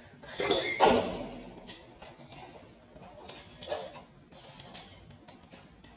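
Ring light stand being handled and adjusted: two sharp clunks with a short ring about a second in, then a fainter knock and small clicks near the four-second mark.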